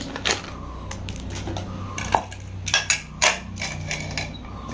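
Light metal clinks and taps as a pressure-cooker whistle (weight valve) is handled and fitted onto the aluminium lid of a Hawkins Miss Mary cooker. There are a few separate clinks, one with a short ring about two seconds in, and a quick cluster about three seconds in.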